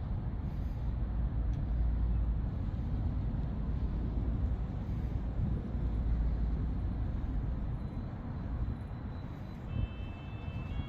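Low rumble of road traffic, vehicles passing, swelling twice and easing off near the end, with a few faint high steady tones in the last second or so.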